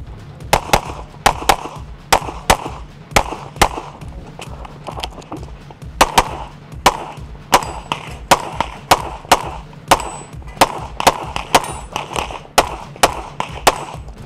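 Rapid pistol shots from a CZ Shadow competition handgun fired in quick pairs, about two dozen in all, with a gap of about two seconds midway. A faint high ring follows a few of the shots.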